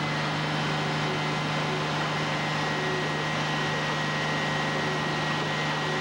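Fire truck engine running at steady high revs: a constant hum with a faint high whine over a hiss of noise.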